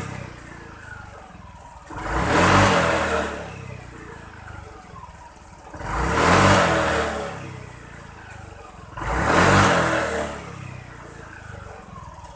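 Honda Vario 125 scooter's fuel-injected single-cylinder engine idling and revved three times with throttle blips, each rev climbing quickly and dropping back to idle. The engine picks up readily, more responsive than before now that its hesitation on throttle has been cleared by a manual ECU reset.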